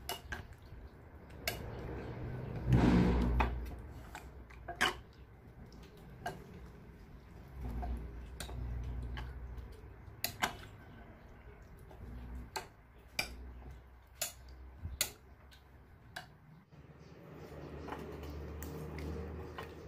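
A plastic spoon stirring thick, wet slime in a glass bowl, with sharp clicks as it knocks against the glass and squelching of the slime, loudest about three seconds in. Near the end, the slime is squished by hand in the bowl.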